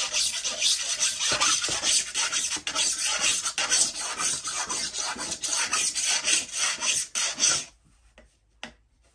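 Flat file rasping back and forth along the steel rails of a chainsaw bar in quick, repeated strokes, deburring the freshly ground rails so the chain rides evenly. The filing stops near the end, followed by a single light click.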